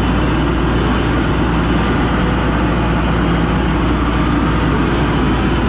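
Skid steer engine running steadily.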